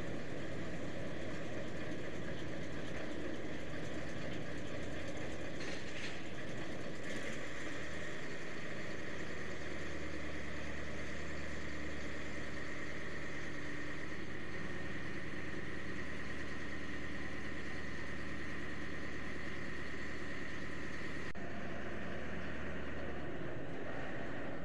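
Boat engine running steadily under a constant hiss. A deeper engine drone rises in pitch about eight seconds in, holds steady, and drops away near the end.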